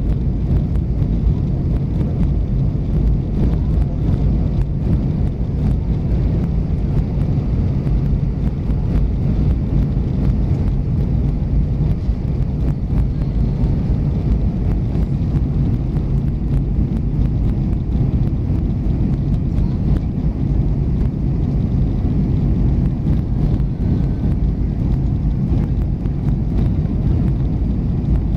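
Steady low cabin drone of an Airbus A320 in flight on its arrival descent, the engines and the airflow past the fuselage heard from inside the passenger cabin. The sound is even throughout, a deep rumble with little high hiss.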